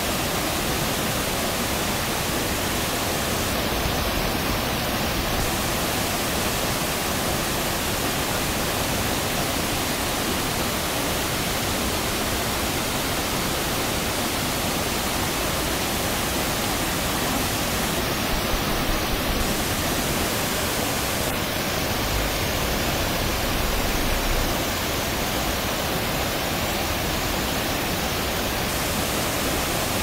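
Waterfall pouring over rock into a pool: a steady, unbroken rush of falling water.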